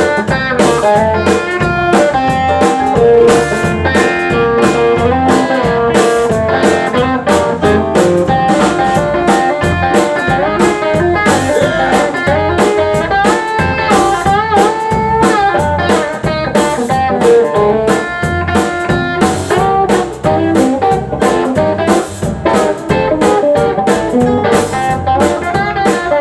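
Live blues band playing an instrumental passage: guitar to the fore over a drum kit keeping a steady beat, with some notes bent in pitch.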